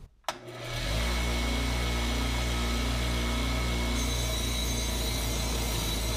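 Small bench grinder running with a wire wheel, the rusty steel blade of a cleaver pressed against it to strip rust: a steady motor hum under a dense scratching hiss. It comes in about half a second in and holds steady.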